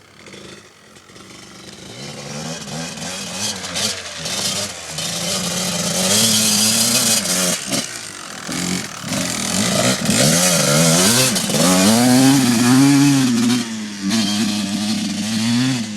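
Kawasaki KDX dirt bike's two-stroke engine being revved again and again, its pitch rising and falling with each blip of the throttle, getting louder after the first couple of seconds.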